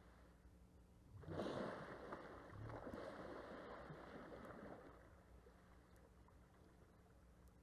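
Rustling and crunching of dry grass as a nearby African elephant tears it up to feed: a burst about a second in, loudest at the start, fading out over about three and a half seconds.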